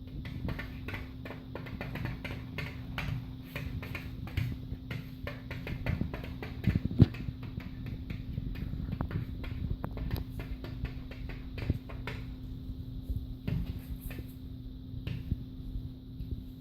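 Rapid, irregular clicks and taps, dense for about twelve seconds and then thinning out, over a steady low hum.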